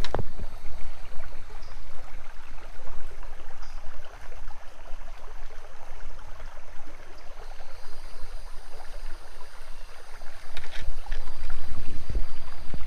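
Small creek's water running steadily, with a low rumble on the microphone and a few light knocks near the start and end.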